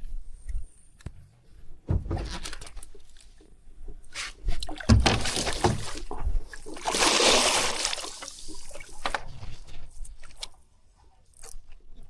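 Hooked fish splashing and thrashing in the water during the fight, in irregular bursts with knocks and sloshing, the biggest splash about seven seconds in.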